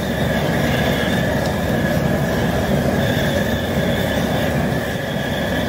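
High-pressure propane burner running steadily under a large boiling stock pot: a constant low roar with a faint steady high whine over it.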